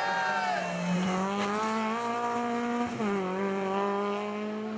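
Renault Clio rally car's engine revving hard through a hairpin. Twice the revs drop briefly and climb again, about a second in and about three seconds in.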